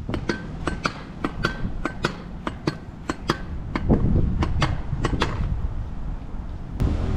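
Vurtego V3 pogo stick bouncing on pavement: a quick run of sharp clacks, mostly in pairs, with a pair about every 0.6 s. Some clacks ring briefly. The run stops after about five seconds, with one last clack near the end. Wind rumbles on the microphone underneath.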